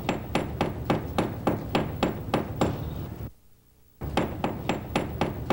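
Hammer striking the wooden hull of a boat in quick, even blows, about four a second, each with a short high ring. The blows stop for under a second a little past three seconds in, then carry on at the same pace.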